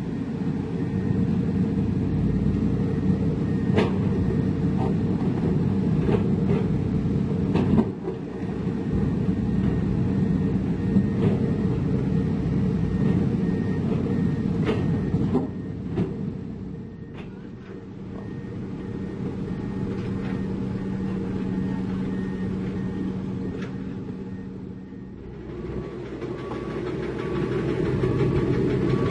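Heavy diesel construction machinery running steadily, with scattered sharp metallic knocks and clanks in the first half; the engine sound eases for several seconds past the middle, then builds up again near the end.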